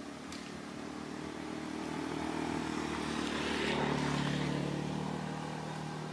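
A motor vehicle passing by on the road: its engine hum grows louder, peaks about four seconds in, then fades.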